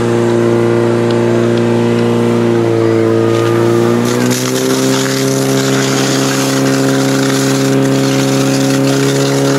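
Fire-attack pump engine running hard and steady. About four seconds in, its note shifts as the lines take water, and the hiss of water jets spraying from two nozzles joins it.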